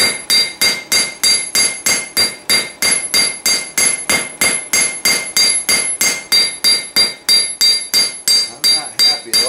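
Cross-peen hand hammer striking the red-hot bowl of a rebar spoon on a steel anvil, shaping the bowl. The blows come steadily, about three a second, and each one leaves a bright metallic ring from the anvil.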